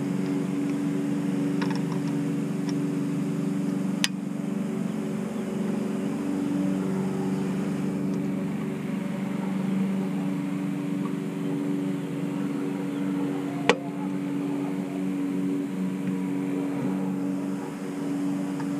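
A steady machine hum with several low tones runs throughout. Over it come faint scraping and two sharp clicks, about four seconds in and just before fourteen seconds, as a small screwdriver pries a plastic tab cover out of a car's roof-rail trim.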